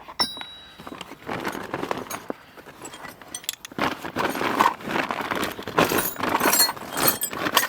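Small steel hand tools clinking and rattling against each other as they are rummaged through and lifted out of a box, in an irregular run of clinks and knocks that gets busier in the second half.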